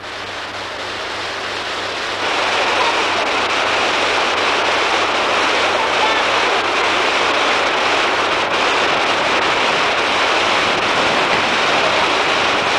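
Steady rush of river water pouring over rocks, building over the first two seconds and then holding even.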